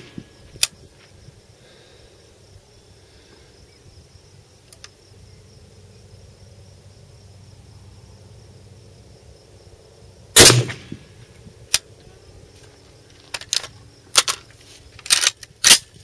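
A single 7.62x39mm AKM rifle shot about ten and a half seconds in, fired one round at a time while zeroing the sights. Several shorter, sharp knocks follow near the end.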